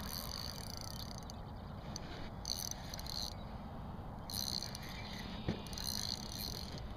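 Fishing reel whirring in three or four short spells of about a second each while a hooked striped bass is fought close to the boat, over a steady low rumble, with a single small knock near the end.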